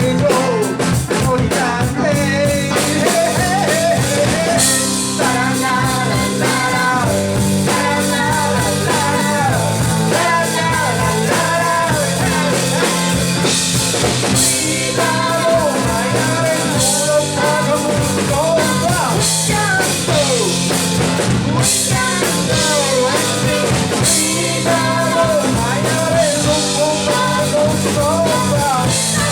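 Live rock band playing: drum kit with cymbal crashes, keyboards and guitar under a lead melody line that bends and wavers in pitch.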